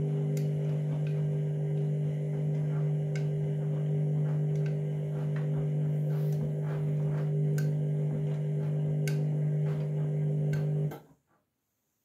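Candy front-loading washing machine running in the start-up of its wash programme: a steady mechanical hum with light scattered clicks that stops abruptly near the end.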